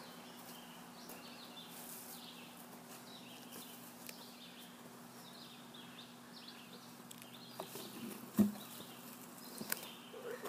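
Small birds chirping over a steady low hum, with one loud thump about eight seconds in as a heavy split oak log is rolled over on the ground.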